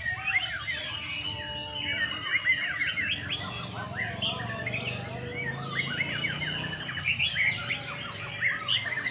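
Several caged white-rumped shamas (murai batu) singing at once: a dense, unbroken stream of quick rising and falling whistles and chirps.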